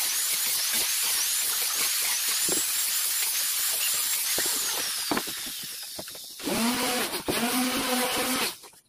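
Electric orbital sander sanding a wooden speaker-box panel: a steady rasping hiss that fades about five seconds in. A steady pitched hum follows for about two seconds and then cuts off sharply near the end.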